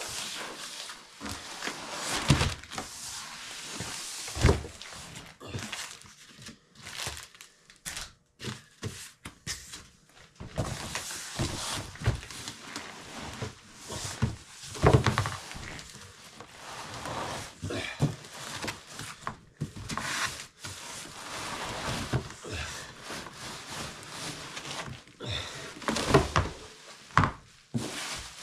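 Long cardboard box being tipped and shaken as a hardshell guitar case slides out of it: cardboard scraping and rustling, with several heavy thunks against a tabletop. Near the end, plastic wrapping crinkles.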